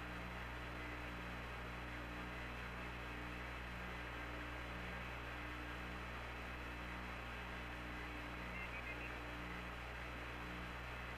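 Air-to-ground radio channel open with no one talking: a steady electrical hum and hiss, with a low tone pulsing on and off roughly once a second.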